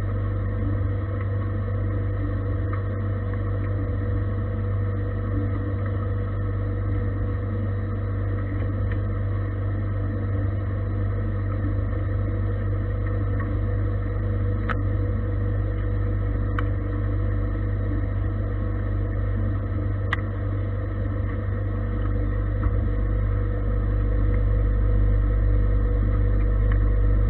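Gildemeister CTX 400 S2 CNC lathe turning a metal workpiece: a steady machine hum with a few sharp ticks in the middle, growing a little louder near the end.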